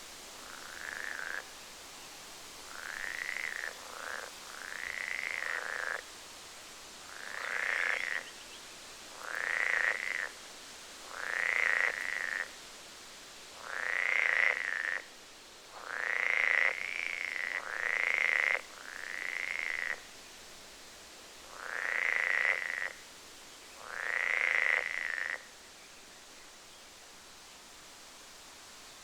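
An animal calling over and over: about a dozen calls, each one to one and a half seconds long, coming roughly every two seconds, over a steady background hiss.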